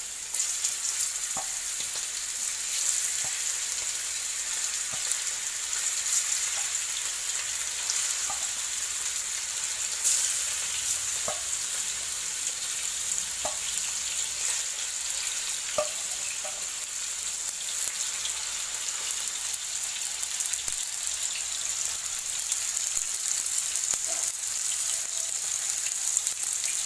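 Marinated chicken pieces frying in hot oil in a non-stick pan: a steady sizzle with scattered crackles and pops as pieces are laid in.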